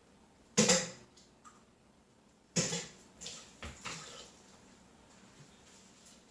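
Two loud clattering knocks about two seconds apart, then a few lighter knocks, from a rice pot and kitchen utensils being handled as more rice is fetched.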